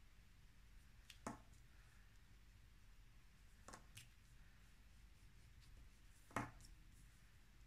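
Near silence broken by three light taps a couple of seconds apart, the last the loudest: oil pastel sticks being handled and set down on the table.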